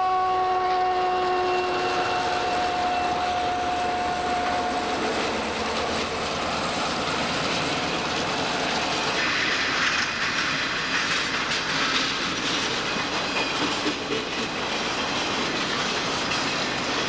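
Train horn sounding a chord that dies away within the first few seconds, then the steady rushing rumble of a train driving a wedge snowplow through deep snow, with the rails' clickety-clack and the spray of thrown snow, getting harsher and more crackly from about halfway.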